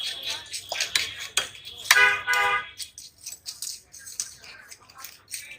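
Fish-market clatter: a quick run of sharp taps and knocks of knife and metal work. About two seconds in comes a short, steady horn-like tone, the loudest sound here.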